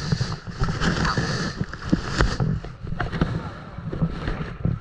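Water lapping and splashing against a kayak, with wind buffeting the microphone and scattered small knocks and clicks.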